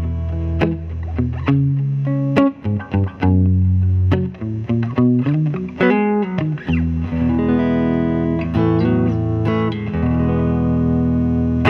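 Electric guitar played through the clean-boost side of a Thorpy FX The Dane pedal: chords and single-note licks with string bends around the middle, ending on a held chord that is cut off suddenly.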